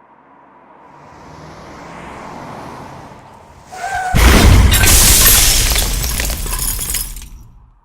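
Vehicle crash sound effect for a box truck accident: a noise builds for a few seconds, a short squeal, then a loud impact with glass shattering and metal breaking that rattles on for about three seconds before stopping.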